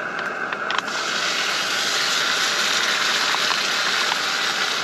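Food tipped from a pouch into a hot frying pan on a camping stove. About a second in the sizzling jumps up and gets brighter as the food lands, then holds steady.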